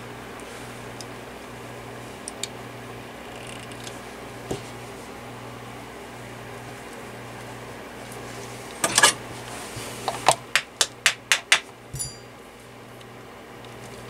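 Parts of an oscillating fan being handled during disassembly: a few scattered clicks, then a cluster of loud clicks and a quick run of about seven sharp clicks and taps near the end, over a steady low hum.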